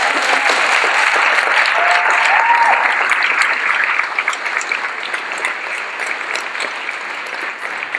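A large audience applauding, starting abruptly and loudest over the first few seconds, then slowly tapering off.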